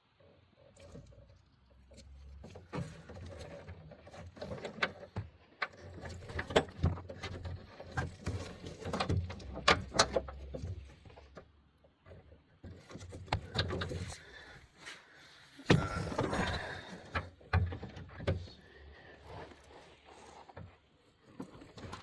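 Irregular clicks, taps and rattles of small metal parts as a truck's door latch linkage is worked back into place by hand inside the door.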